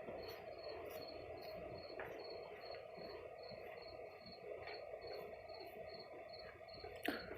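A cricket chirping steadily, about three short high chirps a second, over faint steady background noise, with one sharp click near the end.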